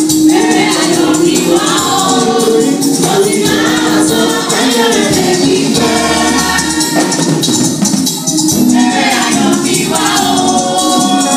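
Women's church choir singing a gospel song, with a lead singer's voice amplified through a microphone out in front.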